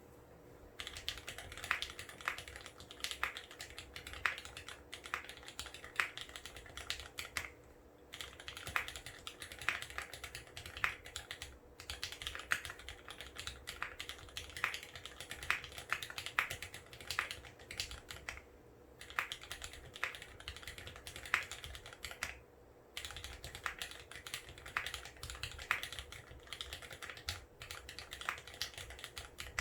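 Continuous typing on a mechanical keyboard with lubed Cherry MX Vintage Black linear switches on an aluminium plate, capped with GMK keycaps: dense runs of keystrokes with a few brief pauses. A faint steady hum sits underneath.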